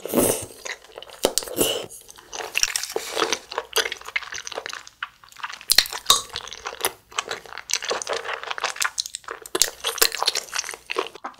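Close-miked chewing of cheese tteokbokki (chewy rice cakes and fish cake in gochujang sauce): wet mouth sounds with many irregular clicks. There is a loud burst right at the start as a saucy piece goes into the mouth.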